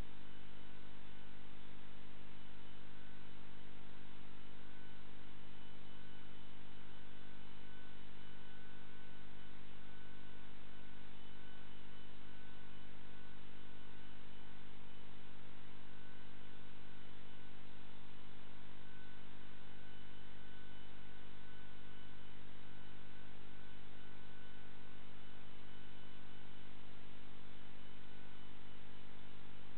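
Steady electrical mains hum with a faint buzz. It does not change and no ball clicks break through.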